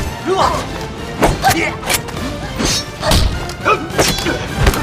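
Fight sound effects: a rapid series of punch and body-blow thuds, with the fighters' grunts and shouts, over background music.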